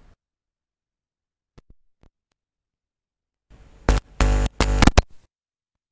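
Dead silence, then about three and a half seconds in a short, loud burst of electronic music lasting under two seconds, cut into several hits: a highlight-reel transition sting.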